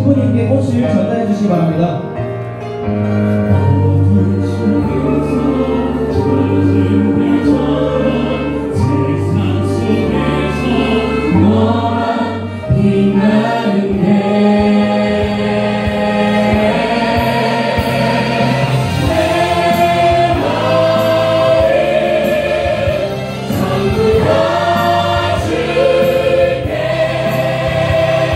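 Several voices singing a wedding song in harmony over instrumental backing, with long held bass notes beneath the vocal line.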